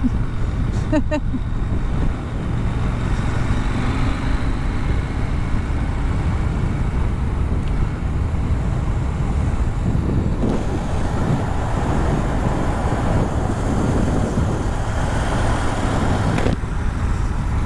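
Motorcycle riding at road speed: steady rush of wind over the microphone with the engine running underneath, without clear gear changes.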